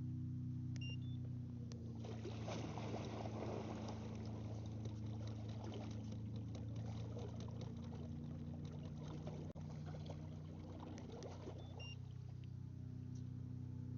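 Water trickling and splashing against a kayak, over a steady low hum, with a few brief high chirps.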